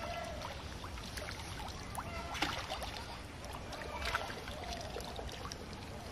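Pond water splashing and dripping as a round hand net on a pole is dipped in and lifted out, with a few short sharp splashes over a steady background hiss.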